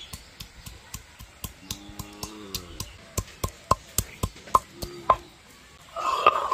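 Stone pestle of a shil-nora knocking down on the flat grinding slab as garlic cloves are pounded, sharp knocks at about four a second. Near the end it turns to a rasping grind as the stone is rolled and rubbed over the crushed garlic.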